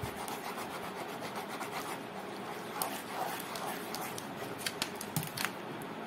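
Steady scratchy rubbing on paper, with scattered small clicks and ticks.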